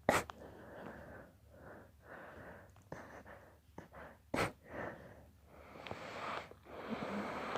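A man's induced sneezing fit: two sharp, explosive sneezes, one right at the start and one a little past halfway, with loud, noisy breathing in and out between them.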